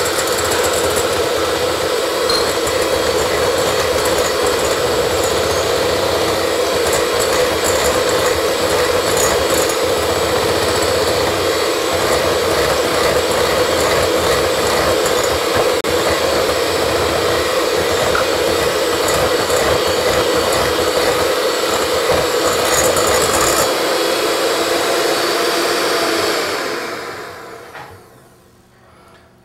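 Electric hand mixer running steadily, its beaters whisking eggs and sugar in a glass bowl. Near the end it is switched off and the sound fades away over a second or two.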